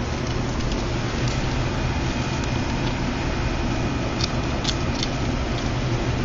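Steady mechanical hum and hiss, with a few faint light clicks.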